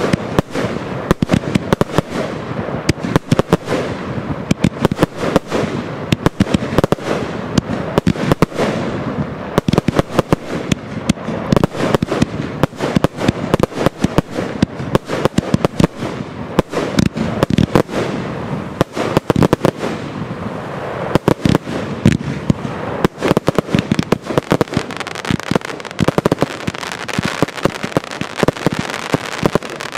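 Fireworks display: a dense, unbroken barrage of sharp bangs, many each second, over a steady din of explosions.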